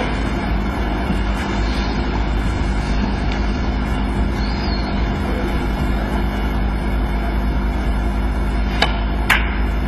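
Quiet arena background with a steady low hum. Near the end come two sharp clicks about half a second apart: a snooker cue tip striking the cue ball, then the cue ball hitting a red.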